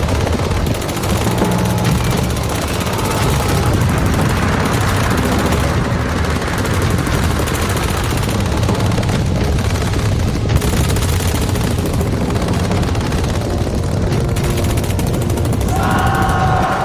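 An added sound effect: continuous dense, rapid rattling noise, with several steady tones sounding together near the end.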